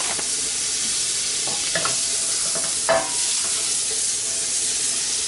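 Butter sizzling and frying in a hot pan, a steady hiss, with a couple of light knocks from a utensil against the pan.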